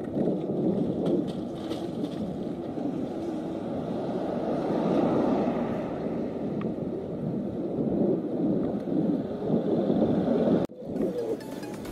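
Wind buffeting a handlebar-mounted action camera's microphone on a moving bicycle: a steady, low, muffled rumble that drops out for an instant near the end.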